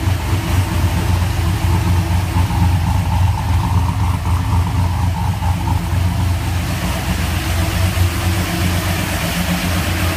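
Freshly built 403-cubic-inch LS V8 in a Trailblazer SS running steadily on its first start.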